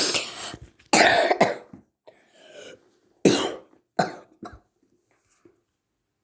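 A person coughing repeatedly, in several short, harsh bursts over about five seconds.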